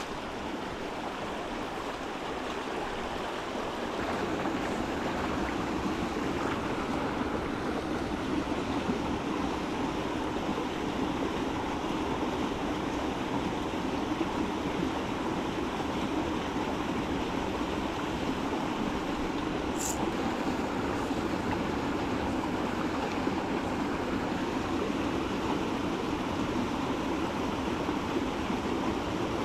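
Steady rush of a small stream, with water pouring out of a concrete culvert into a pool; it grows a little louder about four seconds in.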